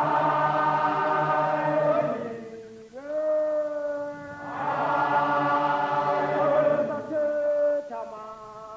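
Zulu warriors' war chant in call and response: a lone male voice holds a long note, answered by a massed male chorus, twice over.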